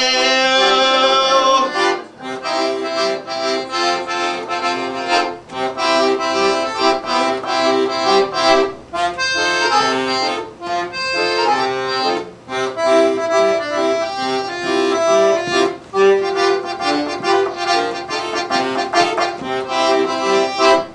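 Piano accordion playing an instrumental break: a melody over a pulsing chord accompaniment, with a few brief breaks between phrases.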